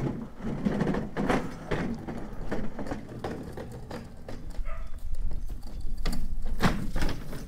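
Folding hand cart, loaded with a wooden box camera, rolling and clattering over paving, its small wheels and frame knocking and clicking irregularly, with footsteps.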